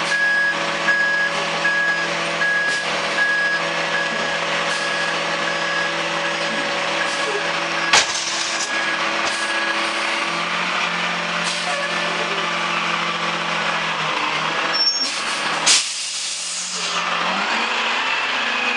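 Mack MRU garbage truck running as it backs up, its reverse alarm beeping steadily for the first ten seconds or so. A sharp click comes about 8 s in, and a short air-brake release near 16 s, after which the engine note drops.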